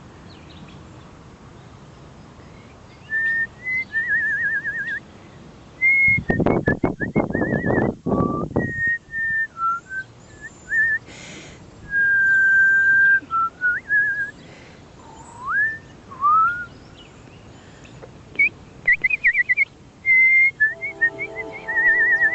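A person whistling a series of clear notes: wavering trills, long held tones and a couple of upward slides. About six seconds in comes a loud low rumble lasting a couple of seconds.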